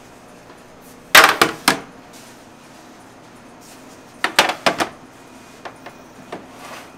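Two short bursts of clatter, each several hard knocks in quick succession, about three seconds apart; the first is the loudest, and a few faint ticks follow near the end.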